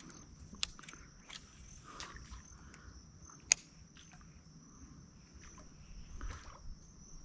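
Insects buzzing steadily and thinly in the mangroves, with a few sharp clicks on top, the loudest about three and a half seconds in.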